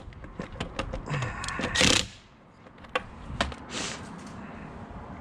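Scattered clicks and knocks of tools and lug nuts being handled during a wheel change, with one short loud whirring burst just before two seconds in.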